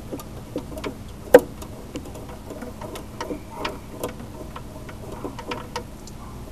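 Small, irregular metallic clicks and taps as a steel brake line's fitting is handled and threaded by hand into the brake hose of a Volkswagen Beetle, with one sharper, louder click about a second and a half in.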